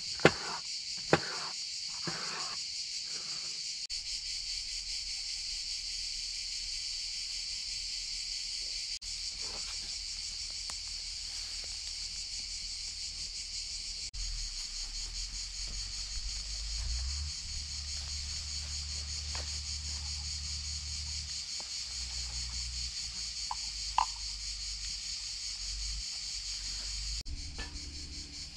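Steady high-pitched insect chorus from the summer woodland. A few sharp knife cuts through red pepper in the first seconds, and a low rumble comes in about halfway.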